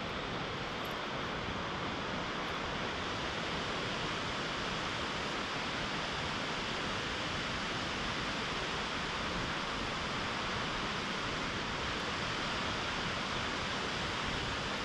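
Waterfall, water pouring over rock ledges: a steady, unbroken rush.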